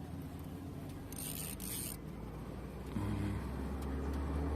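An engine running with a steady low hum that gets louder about three seconds in, with a brief hiss a little over a second in.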